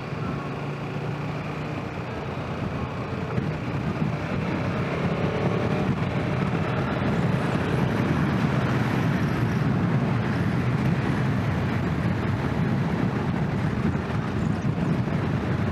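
Motorcycle engine running hard with wind and road rush, rising in pitch and getting louder from about four seconds in as the bike accelerates, then holding at speed.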